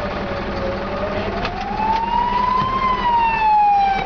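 Fire engine siren wailing slowly: its pitch dips, rises to a peak about three seconds in, then falls again.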